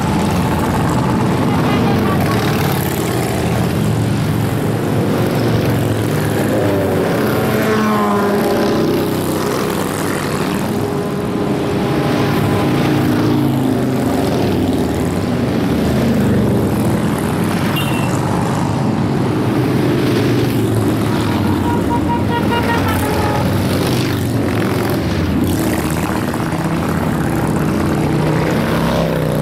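Many large touring motorcycles riding past in procession, their engines running together in a steady, loud din, with single bikes rising and falling in pitch as they pass.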